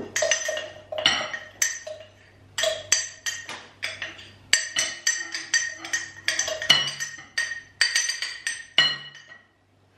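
Metal wire whisk clinking against a glass mixing bowl as dry flour and salt are stirred: an uneven run of sharp taps, several a second, the bowl ringing briefly after each.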